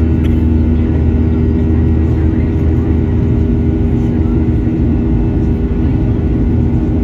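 Boeing 737-800's CFM56-7B turbofan engines at climb thrust, heard inside the cabin: a steady loud drone with a deep rumble and a few held hum tones.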